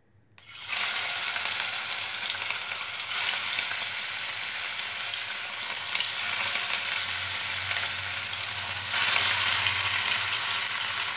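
Turmeric-rubbed katla fish steaks sizzling as they go into hot mustard oil in a nonstick kadai. The sizzle starts suddenly about half a second in and gets louder in two steps, about three seconds in and near the end, as more pieces are added.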